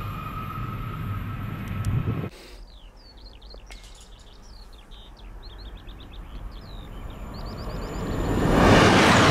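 A steady rushing rail noise that cuts off sharply about two seconds in, then birds chirping over a quiet trackside. From about seven seconds the rush of an approaching TGV Réseau Duplex high-speed train swells quickly to loud near the end.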